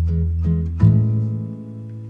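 Background music on plucked strings, guitar-like, over a low bass line; a chord sounds a little under a second in and rings out, fading.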